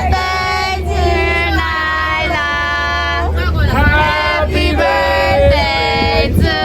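A song with a high sung vocal holding long notes over a steady bass.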